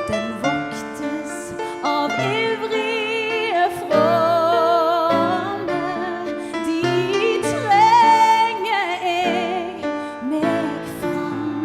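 A woman singing a slow sacred song with vibrato over piano accompaniment, rising to a held high note about eight seconds in.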